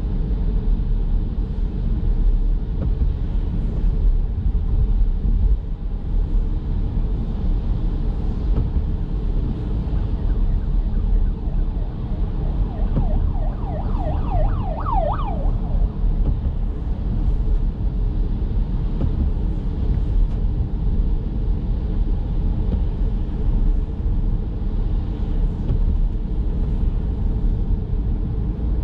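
Steady road and tyre rumble of a Chevrolet Bolt electric car driving on wet city streets in light rain. About halfway through, a siren briefly sounds a quick run of repeated pitch sweeps, about three a second, for a few seconds.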